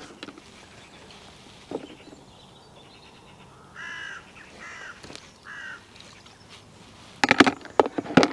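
A crow cawing three times in quick succession. Near the end comes a burst of sharp knocks and clatter from fishing tackle being handled, louder than the calls.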